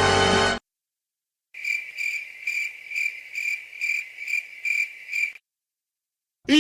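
Cricket chirping sound effect: a steady series of high, evenly spaced chirps, about two a second, starting after a brief silence, the stock comedic 'awkward silence' crickets. The tail of a music clip cuts off just before it.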